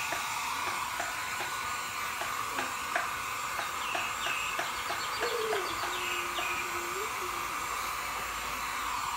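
Handheld electric hair dryer running steadily, blowing on a wet cat's fur. A few short high chirps come through about four and six seconds in.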